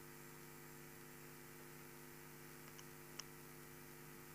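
Near silence with a faint, steady electrical mains hum, and a single faint click about three seconds in.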